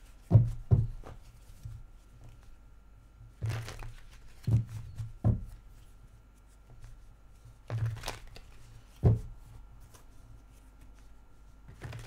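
A deck of tarot cards being shuffled by hand in repeated rounds: a short rustle of cards, then one or two sharp knocks as the deck is tapped on the desk, three times over.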